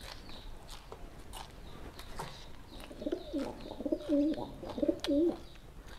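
Light clicks of someone chewing raw vegetables. About three seconds in, a dove gives a low, wavering, repeated coo for about two seconds, the loudest sound.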